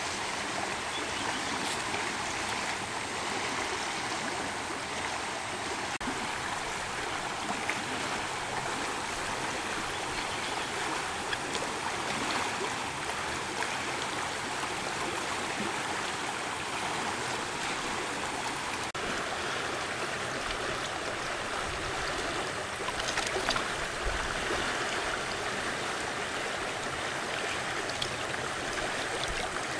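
Steady rushing and gurgling of a flowing stream.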